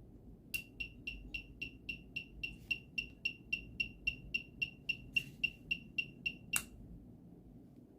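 Bike turn-indicator buzzer beeping about four times a second in step with the flasher. A sharp click about half a second in sets it going, and another click near the end stops it.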